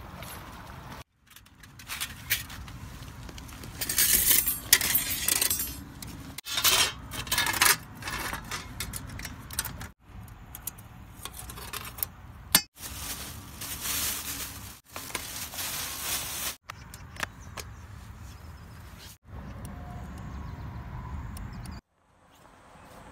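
Clinks, rattles and scrapes of small metal camping gear being handled, including a compact folding table with wire legs being unfolded on stones. The sound breaks off and starts again abruptly several times.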